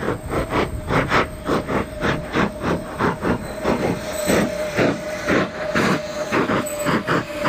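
Music: a steady rhythm of hissing percussion strokes, about four a second, over one held note.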